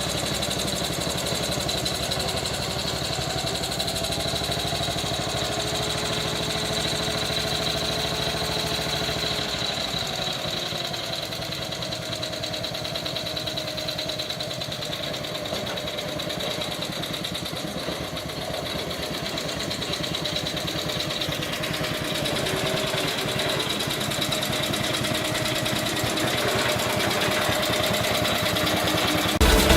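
Engine of a restored Ruggerini tractor running steadily, its pitch dropping a little about ten seconds in, then settling back.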